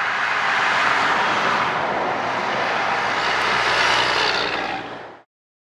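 Heavy trucks passing close by on a highway: a loud rush of tyre and engine noise as a tractor-trailer and a dump truck go past. It fades and cuts off suddenly about five seconds in.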